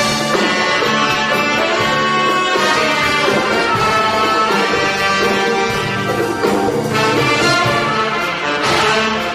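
Pop orchestra playing live, with the brass section to the fore over drums and percussion.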